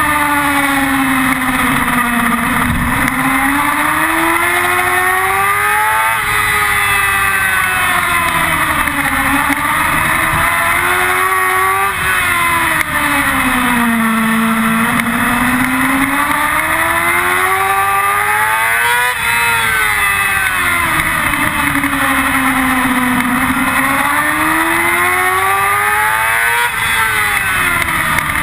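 Yamaha R6's inline-four engine at high revs on track, heard from an onboard camera: its pitch climbs steadily under throttle and then drops back, four times over, with a constant rush of wind noise underneath.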